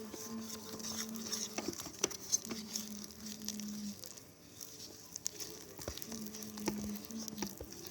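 A sticky starch and dish-soap slime mixture being stirred and worked in a bowl, making irregular small clicks and wet squishes. A faint steady hum sits underneath for the first half and again near the end.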